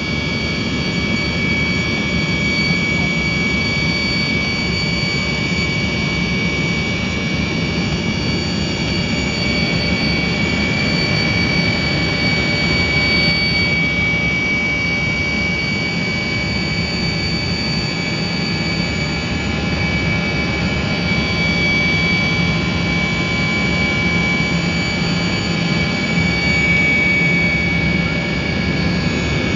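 Tupolev Tu-154's jet engines at takeoff power, heard from inside the cabin through the takeoff roll and lift-off: a steady rumble with a high, even whine over it.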